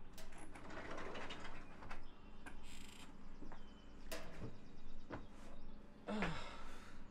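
Sliding glass patio door being slid shut, followed by footsteps and small knocks and clicks as someone moves about the porch.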